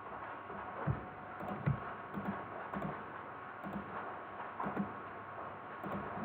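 Scattered clicks and taps of a computer keyboard and mouse, irregular and unhurried, with a few heavier thumps among them.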